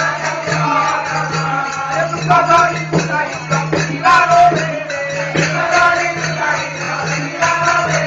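Music for a folk dance-drama: a wavering melody, perhaps a singing voice, over jingling hand percussion, with a steady low hum underneath.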